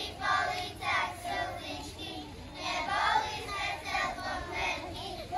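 A group of kindergarten children singing together.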